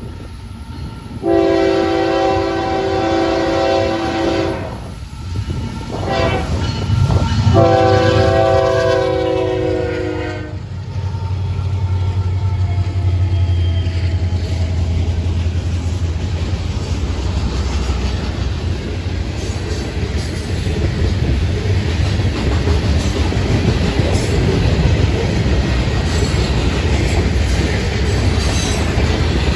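A Florida East Coast freight train sounds its lead locomotive's multi-tone air horn in long blasts as it approaches the grade crossing. Then the diesel locomotives pass with a deep engine rumble, followed by loaded hopper cars rolling by with steady clickety-clack from the wheels over the rail.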